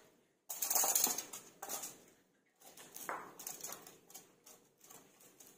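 Sliced onions tipped from a plate and spread by hand over an aluminium-foil-lined baking tray, the foil rustling and crinkling under the hand in irregular bursts.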